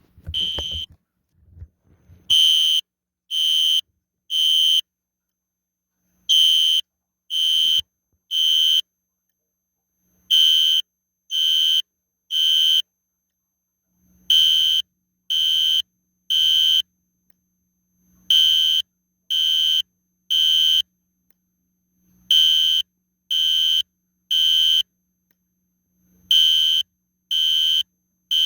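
System Sensor SpectrAlert Classic fire alarm horn sounding in Temporal Code 3: three short, high, harsh blasts with short gaps, then a longer pause, the group repeating about every four seconds. A brief low rumble is heard in the first second or so, before the horn starts.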